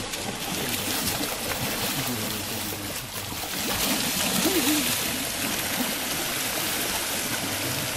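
A shallow, rocky creek rushing steadily over stones, a continuous hiss of flowing water.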